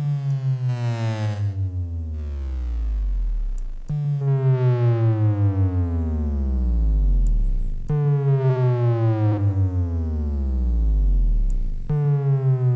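Synthesized bass drop: a sine-tone sweep falling from about 150 Hz to 20 Hz over four seconds, run through a distortion plugin that adds a stack of upper harmonics, playing on a loop and restarting about every four seconds. Each pass pulses in loudness a few times a second near its start.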